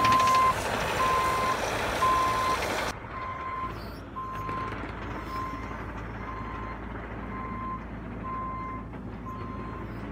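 Bobcat E50z mini excavator's reversing alarm beeping about once a second over its running engine. The machine noise is loud at first and drops quieter about three seconds in, while the beeps go on steadily.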